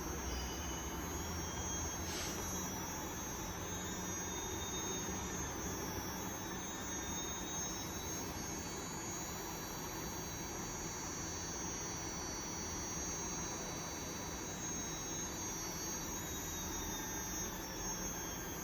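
RDD850 112 kW electric drive motor running steadily in reverse under light accelerator, giving a steady high-pitched whine with a constant hum beneath.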